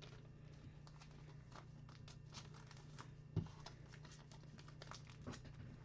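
Faint crinkling and small clicks of a trading card being handled and wrapped up, with one sharper tap about three and a half seconds in, over a low steady hum.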